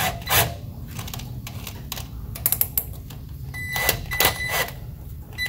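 Small cordless drill run slowly in short spurts, turning a thread tap to chase factory threadlocker out of driveshaft-flange bolt holes. Its motor whines high for about a second near the end, and there are several short scraping clicks from the tap.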